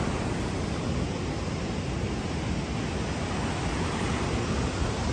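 Water rushing through the open sluice gates of a river dam below, a steady, unbroken noise.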